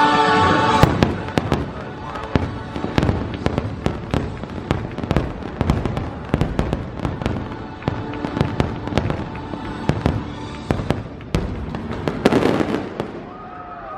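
Fireworks show going off: a dense run of sharp bangs and crackling pops, irregular and overlapping. A choral music passage cuts off about a second in, just as the bangs take over.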